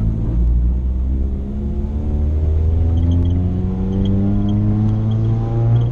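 1992 Honda Civic hatchback's engine accelerating while driving, its pitch rising steadily through one gear, heard from inside the cabin.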